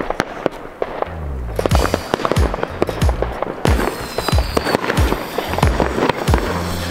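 Fireworks going off in quick succession, many sharp bangs and crackles, over music with a deep bass line.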